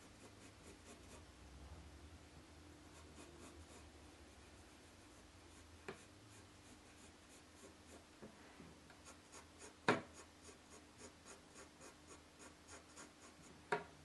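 Soft 6B graphite pencil hatching on paper: faint, quick scratchy strokes at about three a second, darkening the shadows of the drawing. A few sharp taps of the hand or pencil on the drawing board break in, the loudest about ten seconds in.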